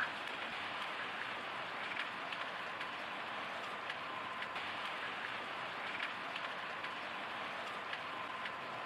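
Steady outdoor background hiss with faint scattered ticks and no distinct event standing out.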